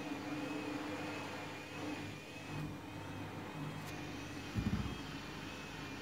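Front-loading washing machine on its spin cycle with a half load: a steady motor hum and a faint high whine that wavers up and down. About four and a half seconds in there is a short cluster of low thumps, as the drum spins a bit out of balance.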